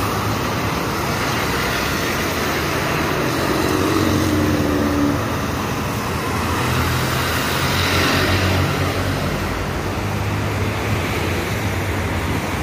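City buses' diesel engines running as they drive past close by, over steady road traffic noise. A short whine is heard about four seconds in, and a bus passing swells the noise around eight seconds in.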